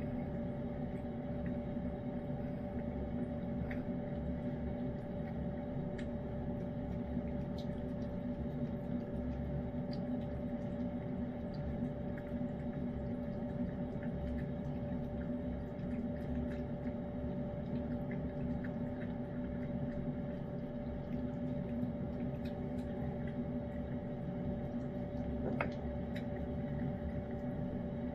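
A steady room hum, one constant tone over a low drone, with faint, scattered small clicks and smacks of a cat licking and chewing canned pâté cat food.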